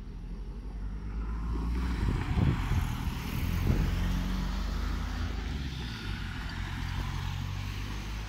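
A car driving over a railway level crossing, the road noise swelling and then easing, with two knocks as the tyres go over the rails.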